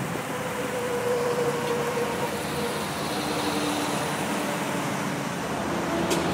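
Bare Ford truck chassis with an exposed engine and no cab or body, its engine running steadily as it drives off, with a faint whine that drops in pitch about three seconds in.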